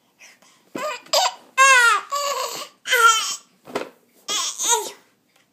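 Baby's loud crying, growling vocal calls: about five separate cries, several sliding down in pitch, the longest near the middle.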